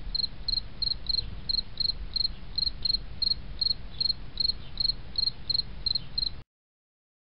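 Cricket chirping steadily, about three chirps a second, over a low rumble; it cuts off suddenly near the end.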